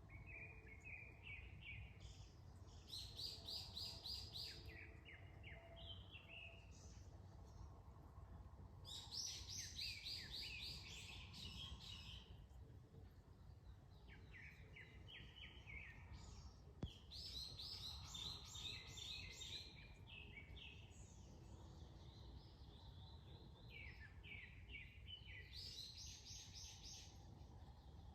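Small songbirds calling in bouts of fast, repeated chirps, about half a dozen bursts each lasting one to three seconds, over a faint low rumble of wind and distant background. A single short click about seventeen seconds in.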